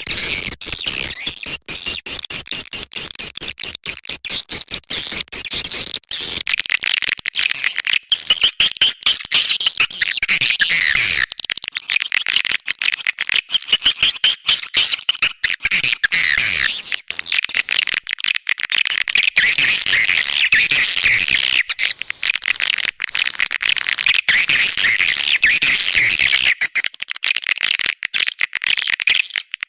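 Swiftlet lure call recording: a continuous, dense chorus of rapid chirps and clicking twitters from swiftlets. This kind of recording is played to draw swiftlets into a nesting house.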